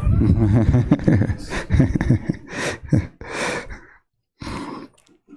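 A man's low, unclear voice close to a microphone, then three or four breathy sighs and exhalations into the mic. There is a short gap, then a brief rustle.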